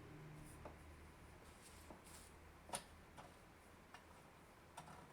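Near silence over a low steady hum, with about five faint, short clicks and light knocks from drill press parts being handled during assembly; the sharpest comes a little under three seconds in.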